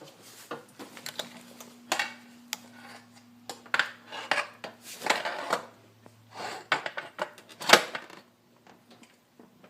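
Irregular metallic clinks and knocks as a Honda V65 Magna's carburetor bank is worked and pressed down into its rubber intake boots, the loudest knock about three-quarters of the way through.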